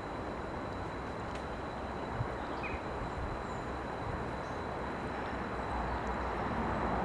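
Steady outdoor background noise with a low rumble, a faint steady high whine, and a few faint bird chirps.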